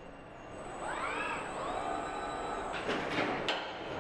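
Assembly-line machinery running: an electric drive whines up in pitch and then holds steady, followed by a few sharp clacks.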